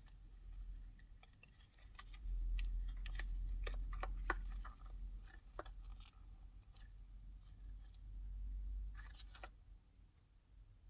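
Cured epoxy resin castings being peeled out of flexible silicone molds: scattered small clicks, crackles and peeling sounds. A low rumble swells up twice, the loudest thing present.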